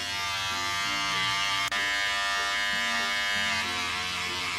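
Electric hair clipper buzzing steadily while cutting the shaved side of a head, its pitch shifting slightly a few times, with one brief click near the middle.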